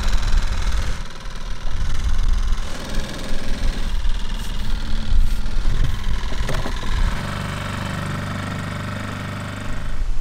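An engine running with an uneven low rumble, settling into a steady idling hum about seven seconds in.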